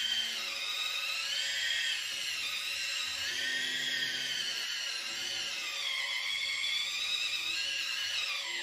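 Radio-controlled Liebherr 970 hydraulic excavator model whining as its upper structure swings round. The pitch of the hydraulic pump and swing drive rises and falls several times as the control is worked.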